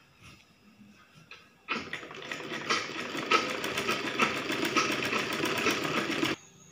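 Sewing machine stitching a seam in a child's frock: after a quiet start with a few faint clicks, the machine starts about two seconds in and runs at a steady, fast stitch rate, then stops abruptly near the end.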